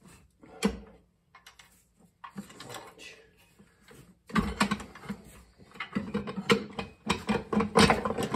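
Heavy steel bar clanking and knocking against the front pump of a 700R4 automatic transmission as the pump is worked loose: one sharp knock about a second in, then from about halfway a rapid, uneven run of metal clanks.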